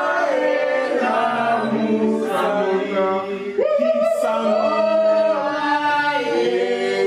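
A group of people singing together without accompaniment, with a long held note starting about halfway through.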